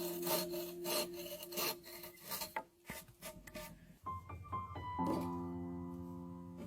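A hand tool rasping on wood in repeated strokes, about three a second, over background music; the strokes stop after about three and a half seconds and piano music carries on alone.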